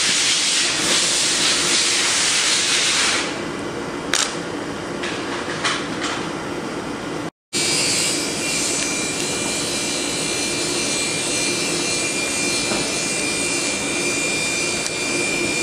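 Steady workshop hiss, with a few light clicks of steel parts and a hex key being handled a few seconds in. The sound drops out for a moment about halfway, then the hiss returns with a faint steady high whine.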